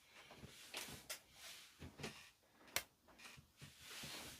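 Faint scraping with a few sharp clicks: a hand tool picking hardened glue off around glued-in components.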